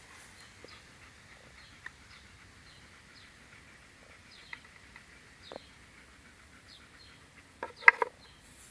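Faint outdoor background with scattered short bird chirps and a few light clicks as a wooden dog puzzle board is handled, then a short, louder sound near the end.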